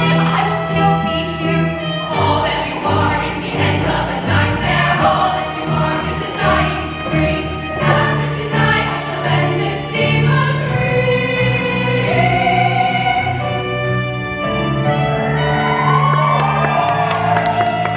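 Women's show choir singing in harmony over instrumental accompaniment, with held notes and a steady bass line underneath.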